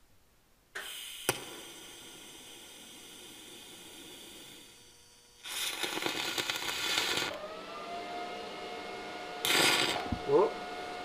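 MIG welder arcing on a tack weld without shielding gas: about two seconds of dense arc crackle just past the middle, and a shorter burst near the end. With no gas the arc burns a hole rather than laying a clean tack. Before the first arc, a steady machine hum starts, with a sharp click.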